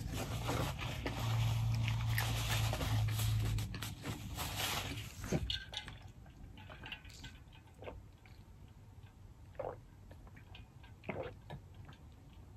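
Quiet close-up mouth sounds: chewing for the first few seconds, then a few soft clicks and sips as an insulated water bottle is lifted and drunk from through its spout lid.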